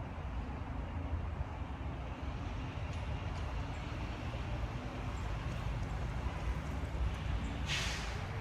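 Steady wind rumble on the microphone with tyre noise from a bicycle being ridden, and a brief hiss near the end.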